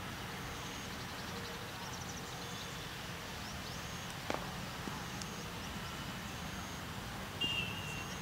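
Outdoor ambience on an open ground: a steady background hum with short high bird chirps on and off, and a single sharp knock about four seconds in.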